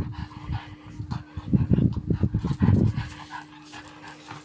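French bulldogs play-wrestling, making rapid low grunts and snorts. There is a burst right at the start and a longer run of them from about a second and a half to three seconds in, then they quieten.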